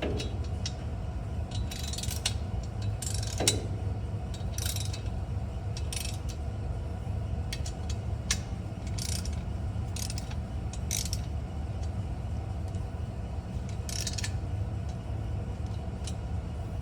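Hand ratchet clicking in short spells as the header's 10 mm flange bolts are snugged down a little at a time, not yet torqued. A steady low hum runs underneath.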